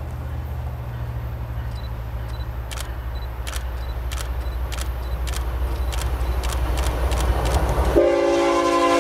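Two approaching GE ES44DC diesel locomotives: a steady low engine hum grows louder, with a run of sharp ticks from the track. About eight seconds in, a loud multi-note locomotive horn chord starts sounding.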